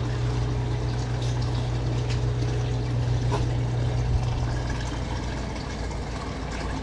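Water running and draining away down a cleared floor drain, with a steady low hum that drops off about five seconds in.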